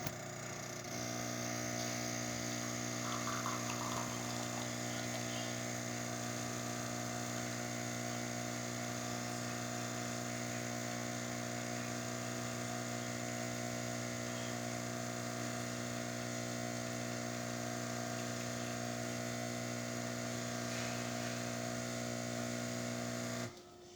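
Jura Giga X7 super-automatic espresso machine running a test shot on its newly replaced left grinder: a steady motor hum that steps up about a second in and cuts off sharply near the end. The machine is working correctly after repair.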